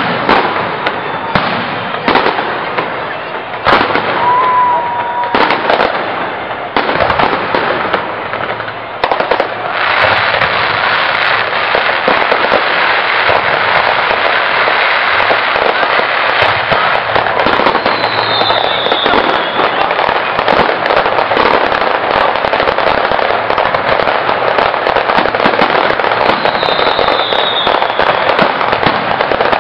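Fireworks display: separate bangs for about the first ten seconds, then a dense, continuous crackling as many shells and crackle effects go off together. A short whistle comes early on, and two brief falling whistles come in the second half.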